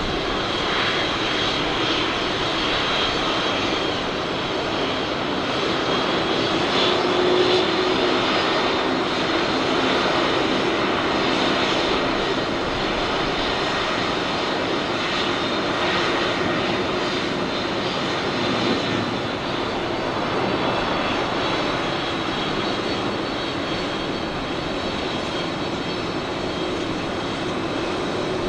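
Boeing 747-400D's four jet engines running, a steady loud noise with a high whine.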